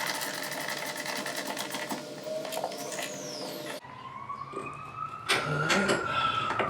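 Small ratchet wrench clicking rapidly as a chassis-brace bolt is spun down, stopping abruptly a little past halfway. A siren then wails in the background, its pitch rising and falling slowly, with a few sharp knocks of tools over it.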